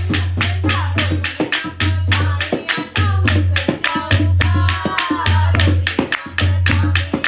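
Dholak drumming with a deep beat about once a second, fast rhythmic hand clapping, and women's voices singing a Punjabi folk song.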